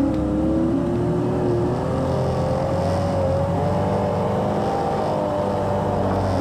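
Side-by-side UTV engine running as it drives, its pitch wavering and rising slightly with the throttle.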